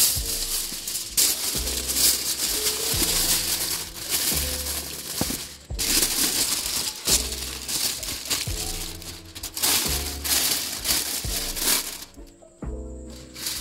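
Aluminium foil crinkling and rustling as hands press and crumple it against the inside of a cardboard box. Background music with a repeating bass line plays under it, dropping out briefly near the end.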